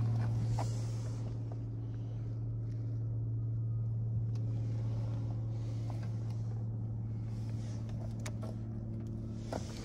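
A steady low mechanical hum, with a few light clicks and rustles over it.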